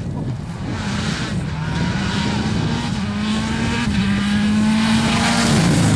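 Mini WRC rally car's turbocharged four-cylinder engine at hard throttle, getting louder as it approaches. Its note climbs in small steps and holds high, then drops sharply about five and a half seconds in.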